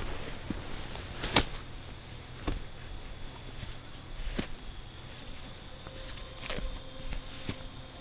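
Footsteps and rustling on dry grass as a camping tent bag is set down and handled, with a few sharp knocks, the loudest about a second and a half in. Crickets chirr steadily underneath.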